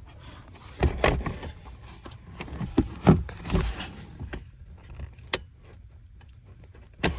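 Irregular clicks and knocks of hard plastic trim and a wiring harness connector being worked loose by hand, with a sharp click near the end.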